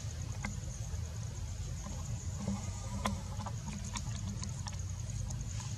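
Outdoor ambience: a steady low rumble, a thin steady high-pitched whine, and scattered faint clicks and rustles, with no clear animal calls.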